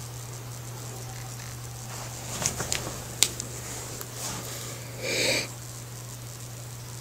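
Steady low hum of aquarium equipment, with a handful of sharp clicks about two and a half to three seconds in and a short breathy hiss about five seconds in.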